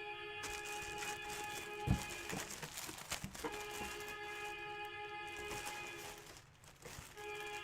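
Background music with long held notes that break off twice and come back, over faint rustling and clicks of handling noise.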